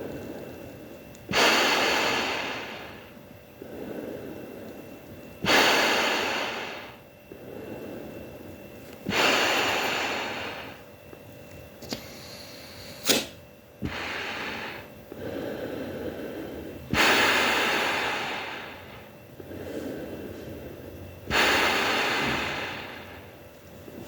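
Breathing through a Sancheong K3 gas mask: five loud, hissing breaths that start abruptly and fade, alternating with quieter breaths in a slow cycle. There is a sharp click about 13 seconds in.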